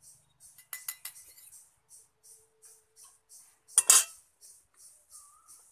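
Long-handled metal spatula knocking against a metal karahi of milk: a few light clinks about a second in, then one loud clank near four seconds. A faint high hiss pulses about three times a second underneath.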